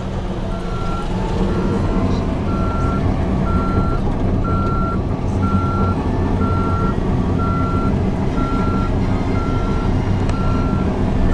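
Caterpillar D8T bulldozer's diesel engine running under load while its reverse alarm beeps steadily, about once a second: the dozer is backing up.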